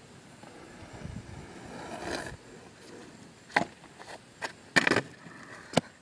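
A longboard's wheels rolling on asphalt, getting louder as it comes closer, then a string of sharp clacks and slaps as the board and the rider's feet hit the pavement on a bailed 180 tiger flip.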